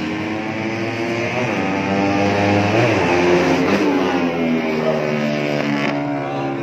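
Racing motorcycle engine at high revs passing close by on the track, its pitch dropping as it goes past about three seconds in, with other motorcycle engines running further off.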